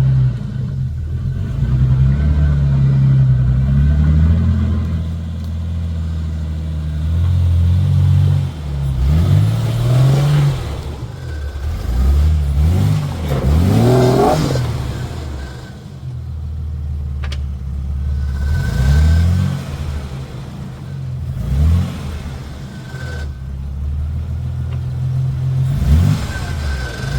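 Jeep Comanche's engine revving up and falling back again and again as it crawls over trail obstacles, with a single sharp knock about 17 seconds in.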